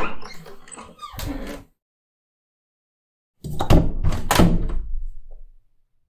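Two separate door recordings with a gap of silence between them. The first ends with a sharp click about a second in. The second, starting past the middle, is several quick knocks and thuds of a door being worked, then fades out.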